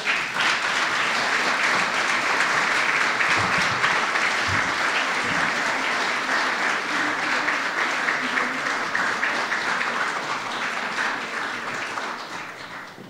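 Audience applauding: a steady round of many hands clapping that starts at once and fades out near the end.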